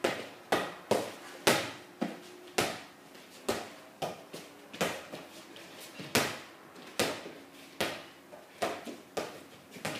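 A football being kicked and bouncing on a wooden floor: a run of sharp thuds, about one or two a second, each echoing briefly in the room.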